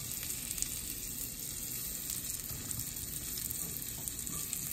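Slices of lion's mane mushroom frying in melted butter in a skillet: a steady sizzle with fine crackling, and light clicks of a fork turning the pieces.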